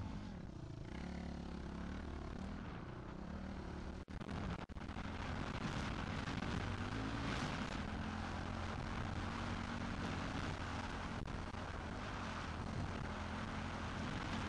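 Motocross bike engine running and revving up and down as it rides over sand dunes, heard through an onboard camera with wind rushing over the microphone. The sound cuts out twice briefly about four seconds in.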